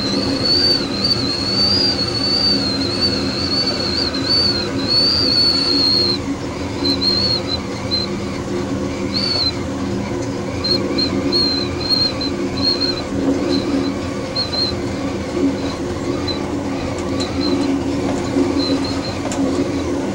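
Amtrak passenger train running along the track: a steady rolling rumble with a high, wavering squeal that holds for about six seconds and then keeps coming back in short chirps.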